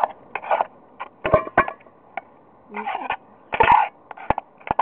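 Metal utensil stirring rice in a metal canteen cup, scraping and clinking against the cup's sides and bottom in short, irregular strokes with sharp ticks between them.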